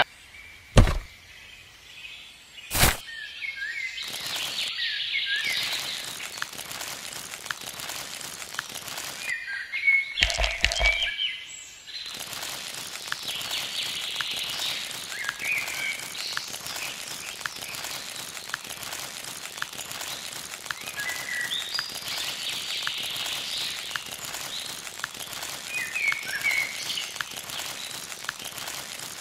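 Small birds chirping in short calls over a steady outdoor hiss, with two sharp clicks in the first few seconds.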